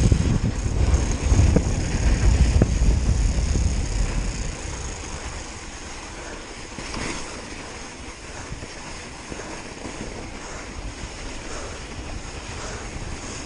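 Wind buffeting the microphone while a mountain bike rides fast down a snow track, with its tyres hissing on the snow. A heavy low rumble for about the first four seconds, then it settles to a quieter steady hiss.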